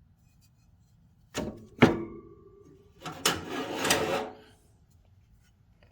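Metal hand tools being handled and set down: a knock, then a sharp clank with a brief metallic ring, followed about three seconds in by a longer clattering rattle of tools.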